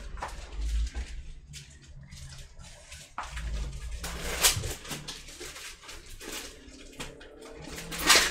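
Scattered clicks, taps and rustles of hands working on a laptop under repair, with the loudest knock a little before the end.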